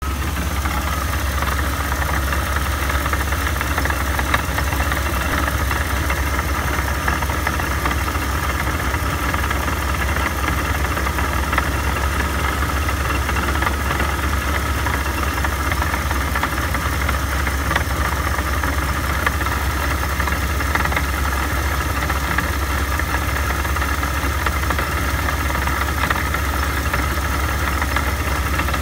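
Supercharged car engine idling steadily, with the rebuilt supercharger making a noise that its owner has flagged as a concern after the rebuild; a steady low hum underlies a constant higher-pitched tone.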